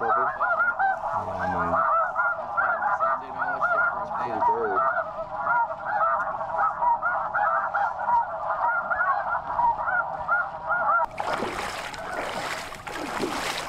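A flock of snow geese calling, many high yelping honks overlapping in a constant chatter, which cuts off abruptly about 11 seconds in. After that comes splashing and wind noise as someone wades through shallow water.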